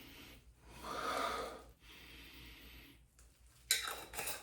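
A man sniffing hard at a beard balm, trying to catch its scent: several long inhalations through the nose, the one about a second in the loudest. Near the end come sharp clicks and rattles of handling.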